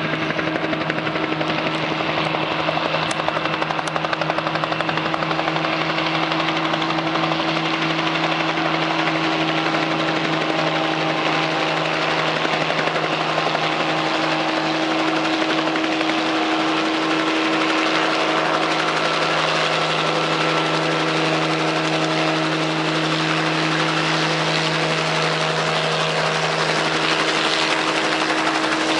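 1966 Bell 47J2-A helicopter running: its six-cylinder Lycoming piston engine and main rotor make a steady, unbroken drone with a constant low hum.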